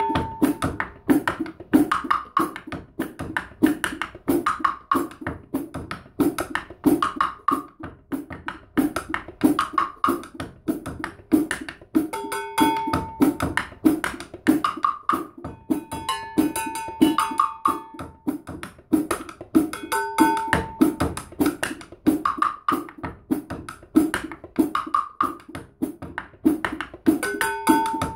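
Drumsticks playing a steady, fast groove on a practice pad and cymbals, with a cowbell clanking in the pattern. A repeated ringing metallic note sounds through the dense stream of strokes, several hits a second.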